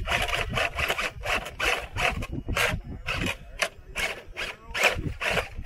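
Scale RC rock crawler's tyres scrabbling and grinding over rock in short, irregular rasps, about three a second, over a low rumble.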